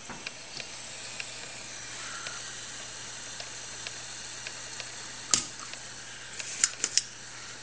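898D rework station's hot-air nozzle blowing with its airflow turned up: a steady hiss over a faint hum. A sharp click about five seconds in and a few more near the end.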